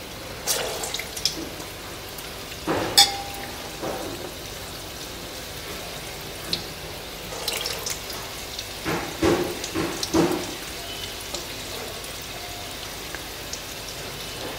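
Urad dal vadas frying in hot oil in a kadhai: a steady sizzle with scattered crackles and pops. There are louder bursts of spattering about three seconds in and again around nine to ten seconds, as more batter goes into the oil.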